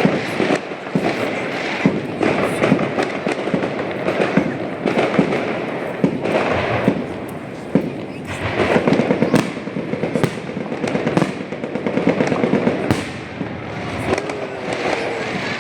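Fireworks display: a dense, continuous run of bangs and crackling pops, coming in swells that grow louder and ease off again.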